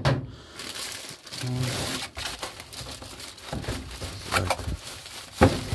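Clear plastic bag wrapping the pump crinkling, and polystyrene foam packing rubbing, as the pump is handled and unpacked from its box. A sharp knock sounds near the end.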